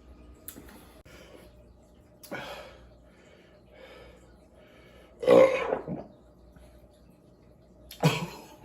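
A man belching several times after drinking beer, the loudest and longest belch about five seconds in.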